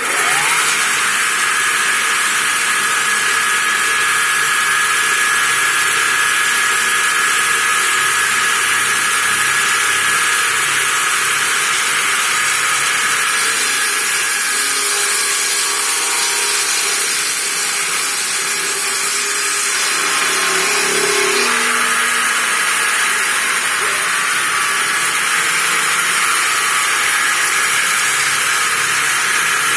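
Homemade sawmill running: a loud, steady hiss with a high whine that starts abruptly and holds at an even level, with a lower tone wavering for a few seconds about two-thirds of the way through.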